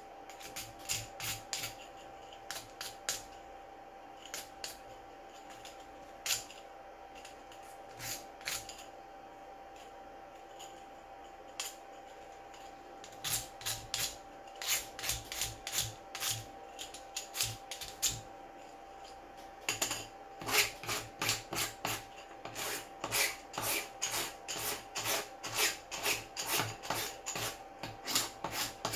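Hand file scraping back and forth on a 3D-printed plastic bearing ring, cleaning the part up after printing. The strokes are scattered at first, then come quicker and steadier, about two a second, in the last third.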